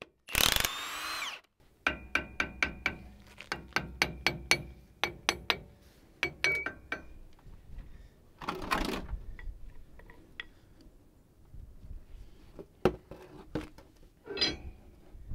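Tools working the 9/16-inch axle shaft flange bolts on a Dodge Ram 3500 rear hub. A brief whirring burst comes near the start, then a run of sharp ratchet clicks at about four a second, with another short burst about halfway through.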